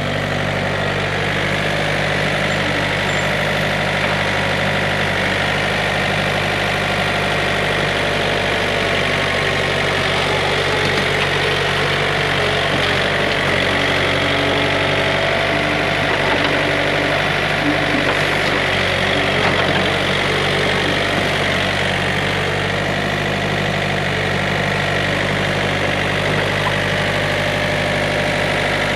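John Deere 110 backhoe loader's diesel engine running steadily at a low, even speed.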